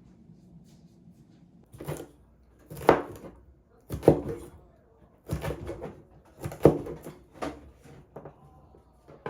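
A string of sharp knocks and clatters, roughly one a second, the loudest about three, four and six and a half seconds in.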